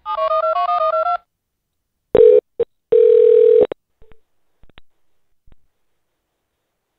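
A phone number dialled in quick touch-tone (DTMF) beeps for about a second, then short bursts of a steady low tone on the phone line as the call goes through, followed by a few faint clicks.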